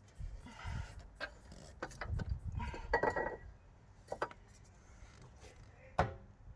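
Metal clinks, taps and knocks of a mounting bolt and hand tools against the alternator and its bracket, with a short ringing clink about three seconds in and a sharp knock near the end.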